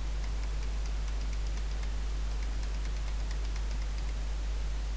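Computer keyboard keys tapped in a quick run of light clicks, about four a second, stopping about four seconds in, as a password is typed twice. Underneath runs a steady low electrical hum.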